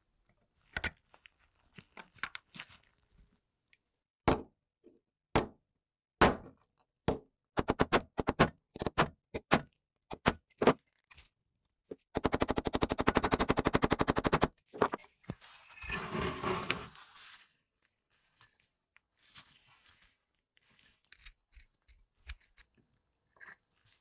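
Steel punch struck on the new flint-wheel rivet of a Zippo lighter insert, held on a small bench anvil, peening the rivet over. Sharp metal taps come about a second apart at first, then in quicker clusters. About halfway through comes a fast, even run of light taps lasting about two seconds, followed by a short scraping noise.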